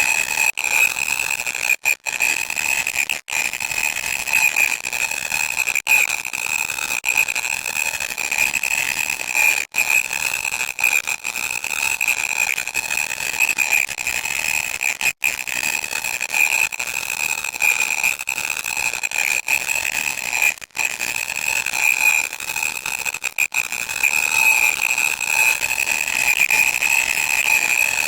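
Loud, harsh static noise: a hissing haze with a steady shrill tone running through it, cut by brief dropouts every few seconds.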